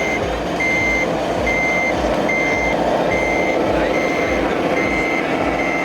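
Reversing beeper of a radio-controlled model truck: a steady high beep, a little more than once a second, over a steady lower hum.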